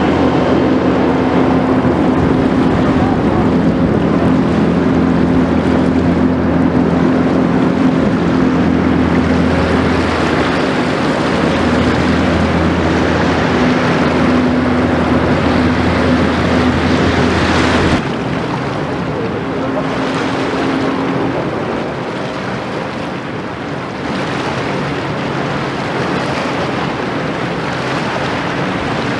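Outboard engine of a rigid inflatable speedboat running steadily at speed as it passes, under a haze of wind and water noise. About two-thirds of the way through the sound cuts abruptly to quieter wind and lapping water, with only a faint, brief engine hum from a boat far off.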